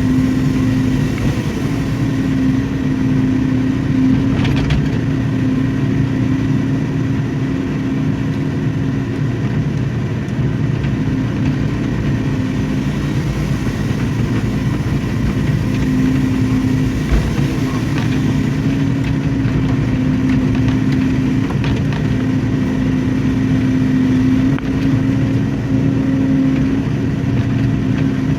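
Hydraulic excavator's diesel engine running steadily under working load, with a few short knocks from the bucket or arm.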